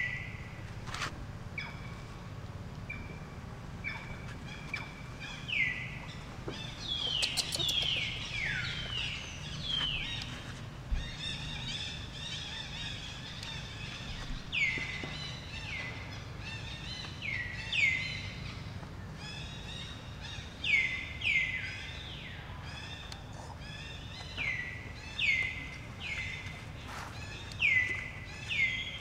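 Animal calls outdoors: short, high calls that each fall in pitch, repeated every second or two and often in pairs, with a denser burst of overlapping calls about a quarter of the way in. A steady low rumble of outdoor noise runs beneath.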